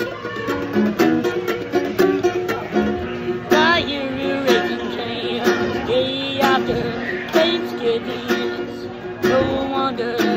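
Small acoustic guitar fingerpicked in a repeating pattern, with a man's singing voice coming in over it about three and a half seconds in.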